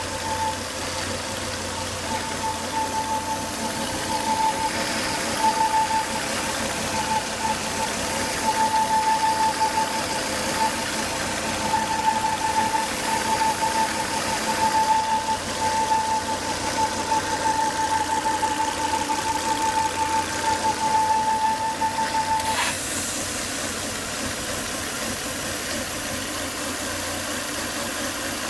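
Volvo S80 2.5T's turbocharged five-cylinder engine idling with a high, pulsing whine that cuts off suddenly with a click about 22 seconds in, leaving the engine running. The whine goes with excess crankcase vacuum from a faulty oil-breather box (PCV).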